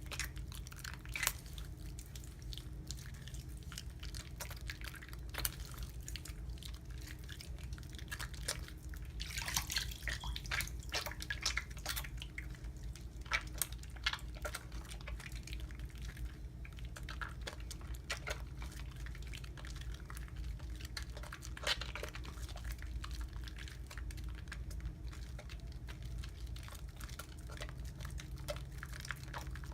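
A wet bar of Irish Spring Original soap being lathered: irregular wet clicks, crackles and drips, with a steady low hum underneath.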